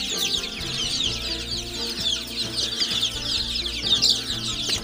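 A brood of young local chicks, about three and a half weeks old, peeping nonstop, many short, high, falling cheeps overlapping. The farmer says the brood has got a little chilled.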